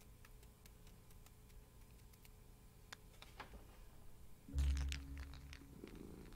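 Faint scattered clicks. About four and a half seconds in, a low held note sounds for about a second and fades.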